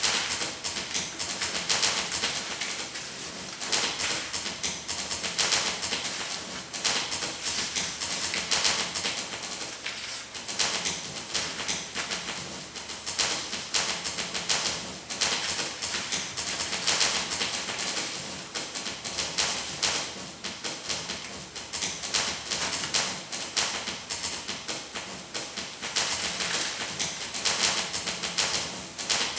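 Paper rustling and crinkling, a dense crackle that comes in surges, swelling and easing every few seconds.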